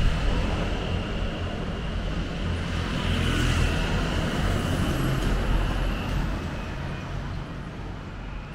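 A motor vehicle's engine running close by on the street, a low rumble that fades away over the last couple of seconds as it moves off.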